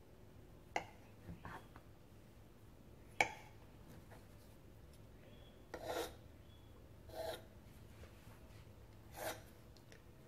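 A large kitchen knife cutting through a round of croissant dough, the blade scraping against the table under it: two sharp taps in the first few seconds, then three short rasping scrapes.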